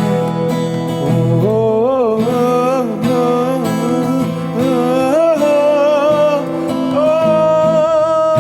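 Background music: acoustic guitar accompaniment under a melody line that slides and wavers in pitch in short phrases.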